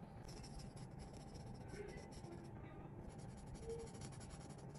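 Felt-tip marker scratching across sketchbook paper in quick back-and-forth strokes while colouring in, with a short pause just before the three-second mark.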